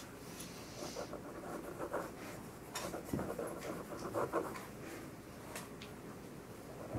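Pencil writing on paper: faint, irregular scratching strokes.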